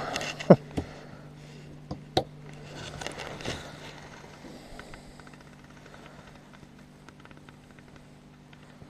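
Gear being handled in a small john boat: a few sharp knocks and rattles, the loudest about half a second in, then quieter shuffling with faint rapid ticking over a low steady hum.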